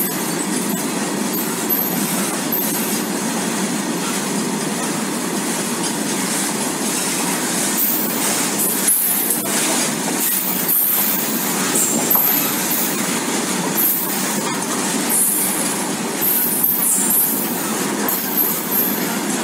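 Ro-Ro freight train of flat wagons carrying loaded lorries rolling past close by: a steady rush of wheels on rail, with short high-pitched wheel squeals coming and going, more often in the second half.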